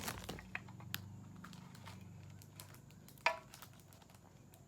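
Faint scattered clicks and light rustles of a small gift box and its paper being handled, with one brief pitched squeak a little over three seconds in.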